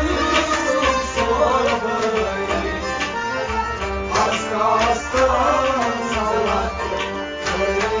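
Kashmiri Sufi devotional music: tabla keeps a steady beat under a wavering melody.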